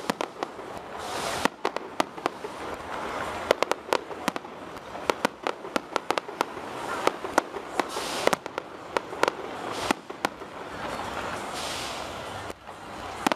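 Aerial fireworks display: many sharp bangs from bursting shells in quick, irregular succession, with a continuous hiss between them.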